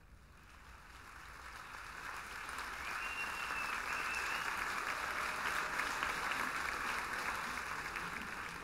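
An audience applauding, fading in over the first few seconds, holding steady, then easing slightly near the end. A short thin high tone sounds over it about three seconds in.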